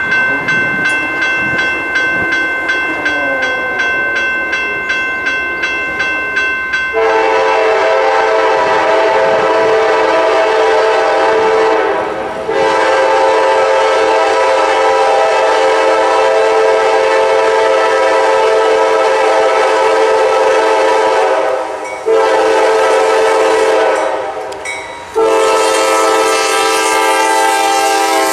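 A bell ringing rapidly as the train approaches. Then the lead GE C40-9W diesel locomotive's air horn sounds the grade-crossing signal: two long blasts, a short one, and a final long one as the locomotive comes up close.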